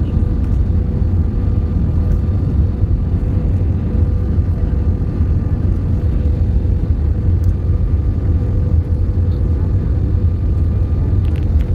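Steady low rumble of a jet airliner's engines and rushing air heard inside the cabin on final approach with flaps extended, with a faint steady hum running through it.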